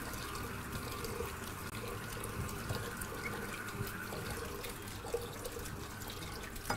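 Tap water running steadily into a pot of rice as the rice is washed.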